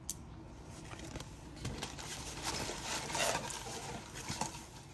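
Rustling and light tapping as a cardboard box and its packaging are handled. There is a sharp tap at the very start, and the rustling is heaviest about three seconds in.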